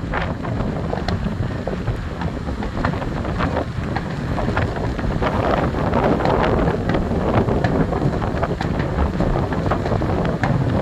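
Fireworks finale: many aerial shells bursting in quick succession, the bangs and crackles overlapping into a continuous rumble that grows denser about halfway through. Strong wind buffets the microphone throughout.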